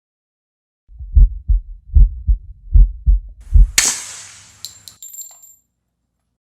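Heartbeat sound effect: four low double thumps, about one pair every 0.8 s, then a sharp hit with a bright ringing tail just past halfway that fades out.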